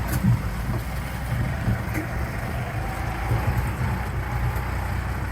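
Tractor engine running with a steady low rumble as it pulls a passenger cart, with a few knocks and rattles.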